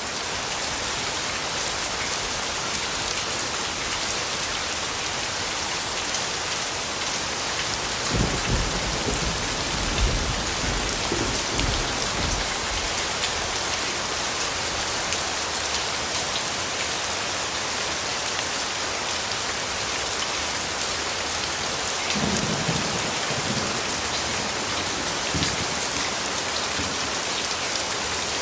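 Steady rain falling in an even hiss, with low rumbles of thunder rolling through about eight seconds in and again about twenty-two seconds in.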